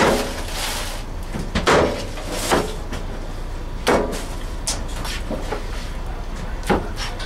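Irregular knocks and thuds, about one every second, some sharper than others, over a steady low hum.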